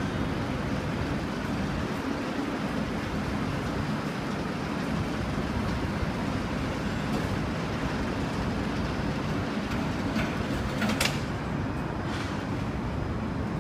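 Steady low rumbling background noise, with a brief sharp sound about eleven seconds in.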